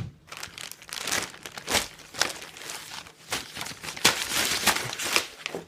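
Packing material being handled in a cardboard box: irregular crinkling and rustling with short tearing noises as items are pulled out.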